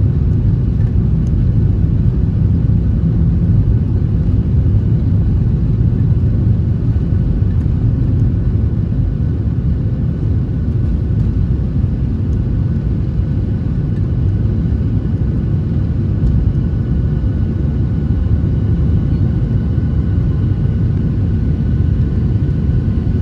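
Aeroplane on landing: a steady, unbroken low rumble with faint steady whining tones above it.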